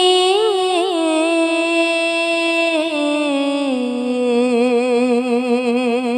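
A woman singing a Sufi kalam, holding one long drawn-out vowel with no instruments heard: quick ornamental turns in the first second, then a steady held note that steps down to a lower pitch about four seconds in and wavers there with vibrato.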